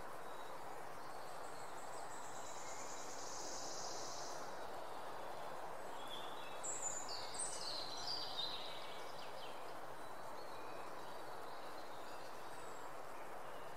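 Outdoor ambience: a steady background hiss, with a high buzzy trill about a second in and a few short bird chirps in the middle.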